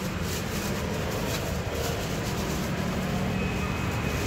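Steady rumble of street traffic, with a few faint light clicks from gloved hands handling dragon fruit on a cutting board.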